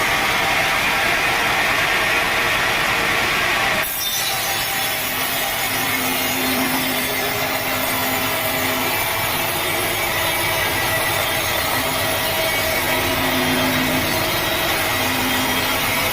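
Sawmill saw blade cutting lengthwise through a teak log, a steady dense noise that changes abruptly about four seconds in.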